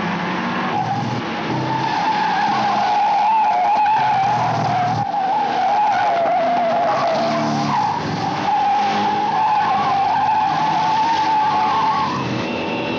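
Tyres of a red Opel Commodore GS/E squealing almost without a break as it is driven hard through bends, the squeal wavering in pitch and stopping about twelve seconds in. Underneath, its engine revs up and drops back several times through heel-and-toe downshifts.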